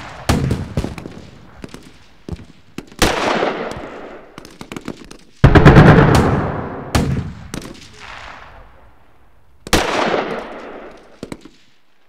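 Battlefield gunfire: scattered rifle shots and short bursts of automatic fire with long echoing tails. A heavy blast about halfway through is the loudest, with another near the end, after which the firing dies away.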